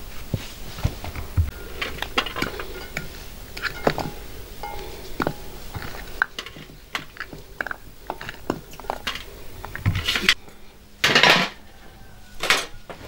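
Cookware clinking and knocking: a metal fork and tomatoes and garlic cloves tapping against a black cooking pot as it is filled, many separate short clicks. Near the end comes a louder scrape of about half a second as the pot is lowered into a tandoor on a metal hook.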